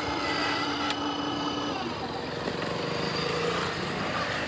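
A road vehicle's engine running close by, with a steady tone that stops a little under two seconds in.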